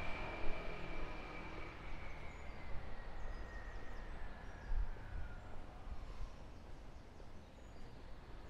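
A passing vehicle fading away, its high whine sliding slowly down in pitch over the first few seconds. A low rumble of traffic continues beneath it, and faint bird chirps come in later.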